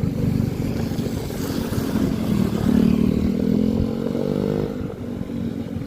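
Motor vehicle engine running, close by: its pitch climbs from about two and a half seconds in to a peak near four and a half seconds, then drops back.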